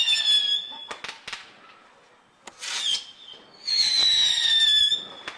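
Consumer whistling fireworks going off: two long, high whistles, each about a second and a half and sliding slightly down in pitch, the second beginning near the end. Between them come a few sharp pops and a short hissing burst.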